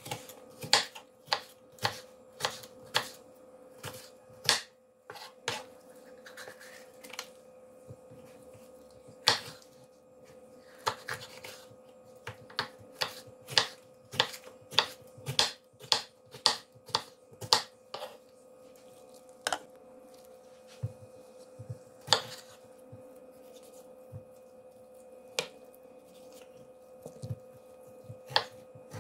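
Kitchen knife chopping green peppers on a wooden cutting board: irregular sharp knocks of the blade striking the board, quick and frequent at first, then fewer and further apart. A faint steady hum runs underneath.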